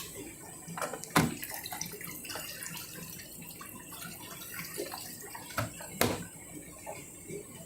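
Candy washing machine on its rinse: water splashing and sloshing in the drum, with a sharp knock about a second in and another near the end.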